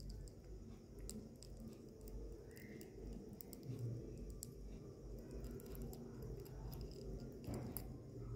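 Faint, irregular small clicks and ticks of a kitten's teeth chewing on a plastic ballpoint pen.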